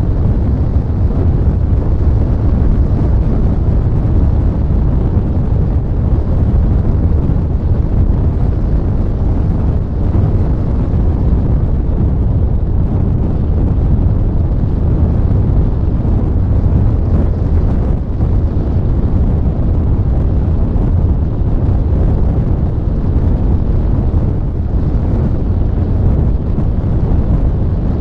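Wind noise from airflow rushing over the onboard camera's microphone on a flying RC sailplane: a loud, steady, low rumble.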